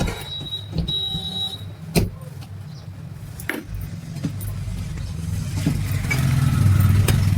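Small electric water-pump motor running with a steady low hum that grows louder in the second half, with a few sharp knocks and clicks of handling in the first half.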